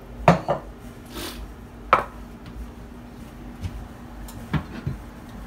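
Kitchenware being handled: a few sharp knocks of bowls and utensils on the counter, the loudest about two seconds in and two more close together near the end, over a steady low hum.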